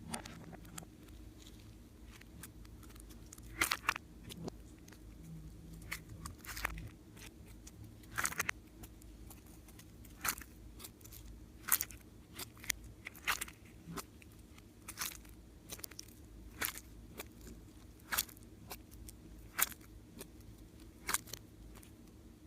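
Slime being pressed and worked by hand, giving sharp irregular crackles and pops roughly once a second, some in quick pairs or clusters.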